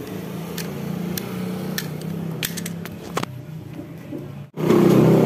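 Short, sharp clicks and scrapes of a small blade stripping insulation off electrical wire, over a steady low hum. About four and a half seconds in, it cuts suddenly to a much louder motor running.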